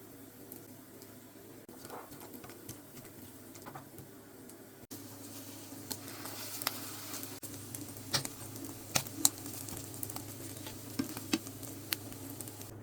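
Food sizzling in a frying pan, with sharp clicks and taps of a utensil against the pan. It gets louder after a cut about five seconds in, and the loudest clicks come between about eight and twelve seconds in.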